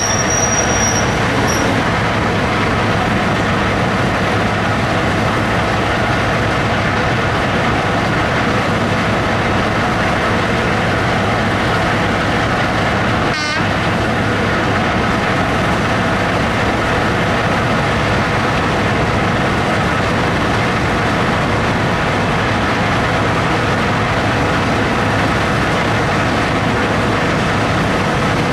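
British Rail Class 55 Deltic diesel locomotive standing and running its twin Napier Deltic two-stroke engines at a steady idle, a loud, even drone with constant tones in it.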